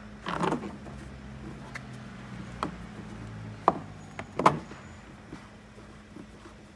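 Car door trim being handled: a short scraping rustle, then a few sharp plastic clicks and knocks.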